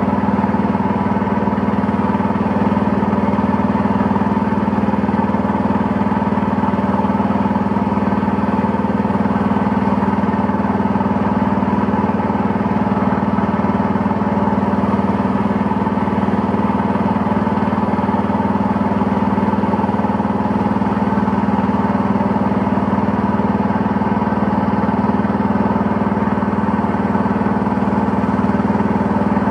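Engine of a narrow wooden motorboat running steadily at one even pitch while the boat is under way.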